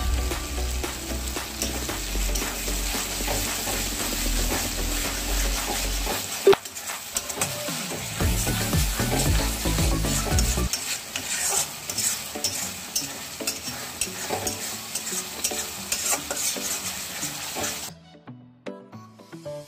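Food sizzling in a frying pan while it is stirred, the spoon clicking and scraping against the pan; the sizzle drops away near the end.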